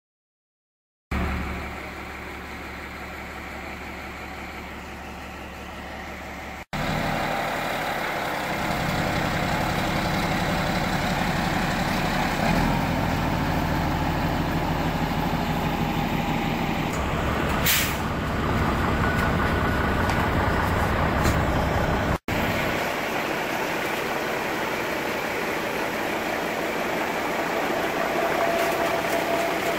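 Heavy diesel truck engine idling steadily, in three stretches that change abruptly at two cuts. A short hiss of air about two-thirds of the way through.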